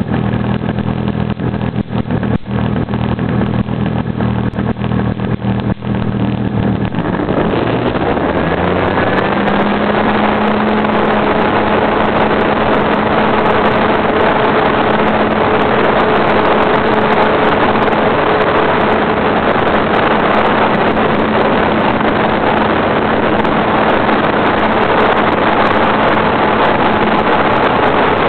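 Radio-controlled model airplane engine and propeller, heard from a camera on the plane. It runs at low throttle with a steady drone and a few knocks for about seven seconds, then is opened up, rising in pitch over a couple of seconds on the takeoff run. It then runs steadily at high power under a loud rush of air noise in flight.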